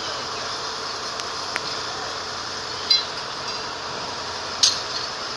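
A few sharp metallic clinks, the loudest near the end and one with a brief ring a little past halfway, over a steady hiss.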